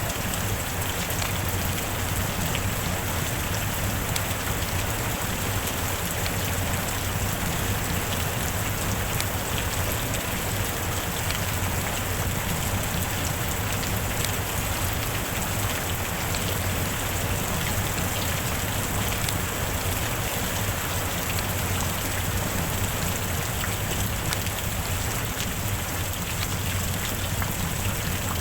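Steady rain: a dense, even hiss with many fine drop ticks, unchanging in level.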